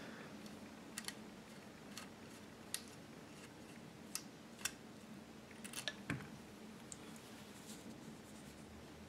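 Faint, sparse small metal clicks and scrapes of a screwdriver turning a small screw out of a gun's magazine latch, with a short cluster of clicks about six seconds in as the parts come free.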